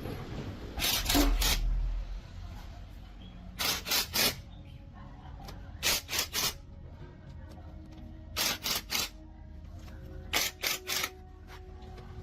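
Rasping hand-tool strokes on a truck gearbox part, in quick sets of three, a set about every two seconds.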